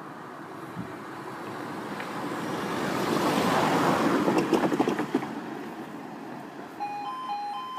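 A road vehicle passes the crossing: its tyre and engine noise swells to a peak about halfway and fades, with a few clicks as it goes over. Near the end the level crossing's two-tone warbling alarm starts up, marking the start of the warning sequence for an approaching train.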